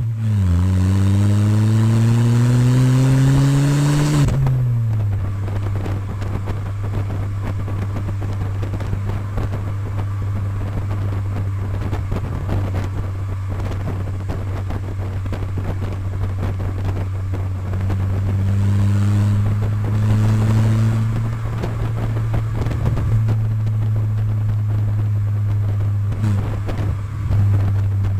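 Chevrolet Vectra's engine and modified exhaust: the revs climb steadily for about four seconds, then fall back around four seconds in to a steady, deep idle.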